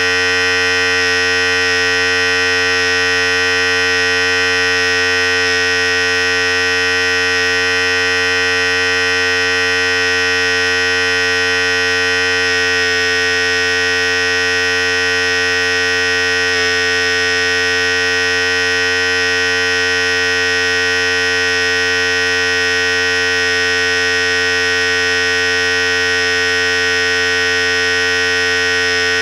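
Philips Series 5000 hair clipper running continuously with a steady electric buzz, a low hum under many higher overtones. Its tone shifts slightly about 13 and 17 seconds in.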